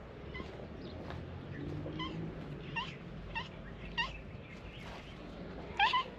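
Calico cat meowing in a series of short calls, about one every half second to second, the last two near the end the loudest.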